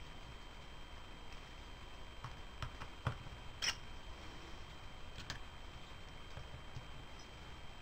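A fine-tip Phillips screwdriver clicking and ticking against the small faceplate screws of a DiNotte 400L bike headlight as they are lightly tightened. It makes a few faint separate clicks, the loudest a little under four seconds in.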